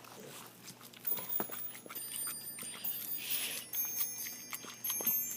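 A dog eating fast from its dish, with irregular wet smacks and clicks of chewing and gulping. A faint high metallic ringing runs along with it.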